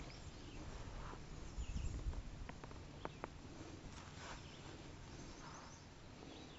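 Faint outdoor ambience with soft rustling and a few light clicks about two and a half to three seconds in.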